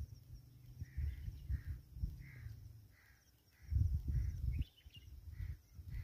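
Chukar partridge calling: a regular series of short calls, about one and a half a second. Under them runs a low rumble that swells loudly about four seconds in.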